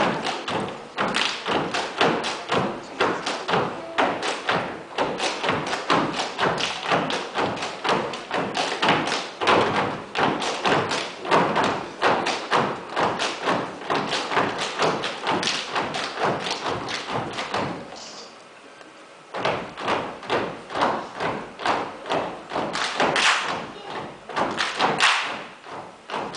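Gumboot dancers stamping and slapping their rubber boots in a fast group rhythm on a wooden stage floor. The stamping stops for about a second and a half roughly two thirds of the way through, then starts again.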